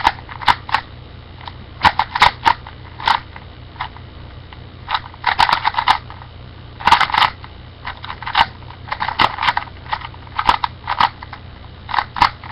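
An original Rubik's Cube being turned fast during a speedsolve: its plastic layers clack in quick bursts of clicks, broken by short pauses, over a steady low hum.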